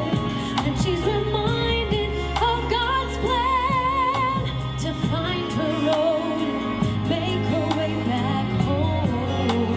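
A woman singing a gospel song with vibrato over a backing track with bass and a steady beat.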